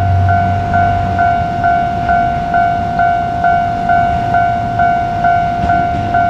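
Japanese level-crossing warning bell ringing, a steady electronic ding repeating about twice a second. Under it, a passing train's low rumble fades out about a second in.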